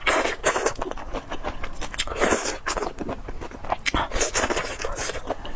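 Close-up eating sounds: chewing and biting food near the microphone, in irregular wet, crunchy bursts several times a second.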